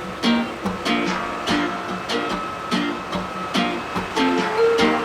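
Background music: a strummed guitar playing a steady rhythm.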